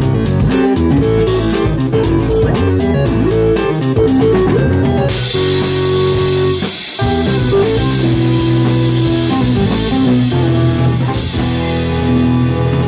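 Loud live rock music: guitar over a drum kit, with a fast steady beat at first and then crashing cymbals from about five seconds in. The song ends abruptly at the very end.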